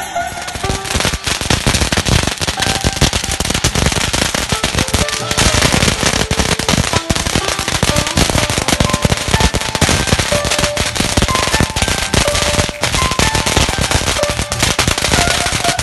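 A string of firecrackers going off in a rapid, continuous crackle of small bangs.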